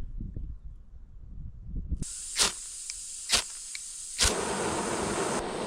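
Portable gas camp stove being lit: gas hissing from the opened valve, three clicks of the igniter, and on the third click the burner catches and runs with a steady rushing hiss.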